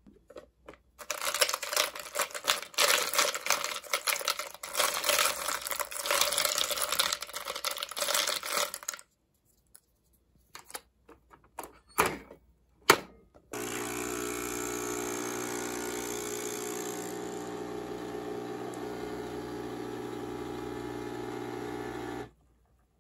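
Several seconds of busy clattering and clicking, then a few sharp clicks, the loudest just before the brew starts. A Nespresso Essenza Mini capsule machine's pump then runs with a steady hum for about nine seconds as espresso pours, and it cuts off shortly before the end.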